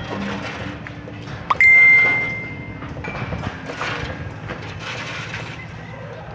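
Metal struck once, sharply, about a second and a half in, then ringing on with one clear high tone for about a second before fading away.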